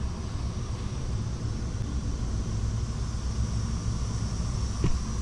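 Gas-fired Weil-McLain EGH-125 steam boiler running: a steady low burner rumble with a thin steady high whine over it, and one short click near the end.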